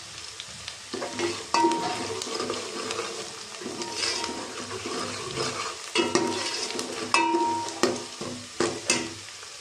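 Chopped onions sizzling in hot oil in a stainless steel pot, stirred with a steel ladle that scrapes and knocks against the pot. A few sharp knocks, two of them ringing briefly.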